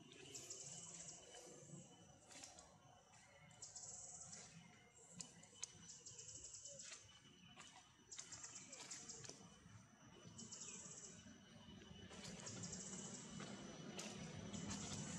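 Faint outdoor ambience of high-pitched, finely pulsing chirping trills, each lasting about half a second to a second and recurring every second or two, with scattered small clicks and rustles.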